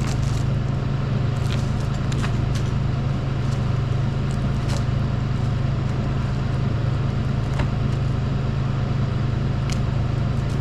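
An engine running steadily at a constant low pitch, with scattered light clicks and ticks over it.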